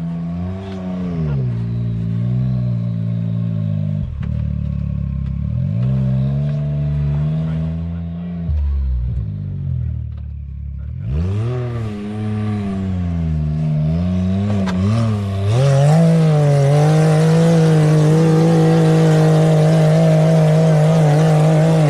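Side-by-side UTV engine revving up and down repeatedly under load on a rock climb. About 11 s in it gives way to a louder, steadier engine run, held at constant high revs from about 16 s.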